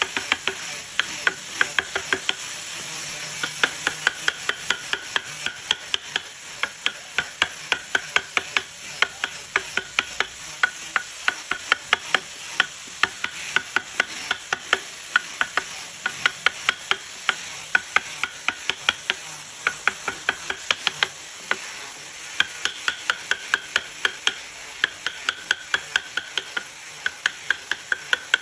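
Wood carving chisel driven by mallet taps into wood, in a quick steady rhythm of about three to four sharp taps a second, pausing briefly a couple of times.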